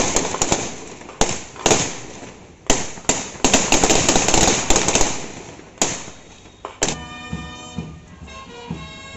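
Feu de joie: a ripple of rifle shots fired one after another down the parade ranks, a fast, uneven string of sharp cracks. About seven seconds in, the firing stops and a band starts the national anthem tune.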